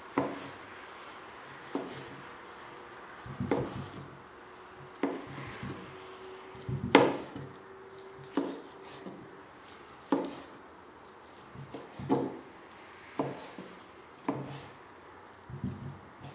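A large kitchen knife cutting cooked meat on a plastic cutting board: the blade knocks down onto the board about once a second or so, about a dozen knocks, the loudest about seven seconds in.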